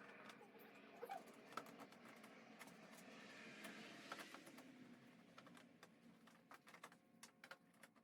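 Faint, irregular light clicks and taps of hand tools and plastic fairing panels being worked off a motorcycle.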